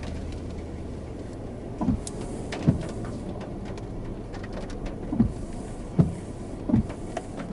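Steady low vehicle hum with faint scattered ticks. From about two seconds in come short, low thuds that drop in pitch, most about a second apart.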